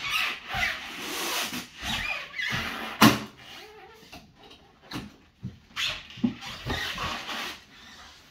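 Large latched hard-shell crate being shoved and turned by hand: rough scraping slides broken by knocks, with a sharp loud knock about three seconds in and several smaller knocks later.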